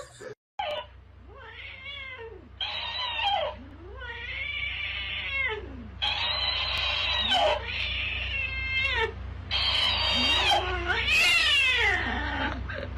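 Domestic cats caterwauling at each other: a long string of drawn-out yowls, each rising and falling in pitch, starting about a second in. It is the warning yowl of cats squaring off.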